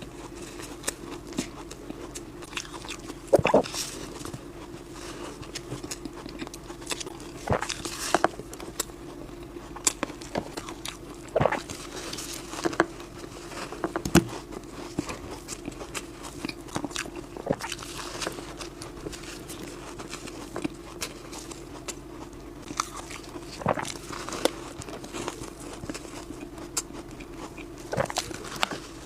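Bites into soft, squeaky freezer frost and shaved ice, each a short crunch, coming at irregular intervals every second or few seconds.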